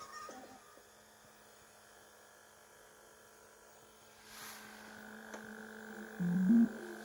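Faint steady hum with a thin whine from a VHS player running a tape. About six seconds in comes a short, louder low-pitched tone, as the tape's soundtrack begins.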